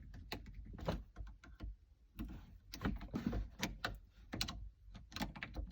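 Irregular light clicks and knocks of a plastic trim piece being worked loose and pulled out by hand.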